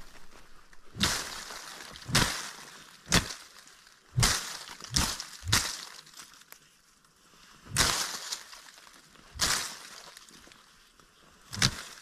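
Footsteps crunching on dry, stony ground and brush, a sharp crunch roughly every second with a couple of longer pauses.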